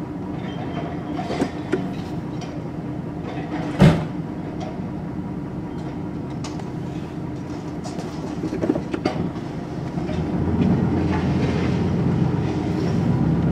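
Truck engine running steadily, with scattered rattles and one sharp metallic clank about four seconds in; the engine grows louder from about ten seconds in.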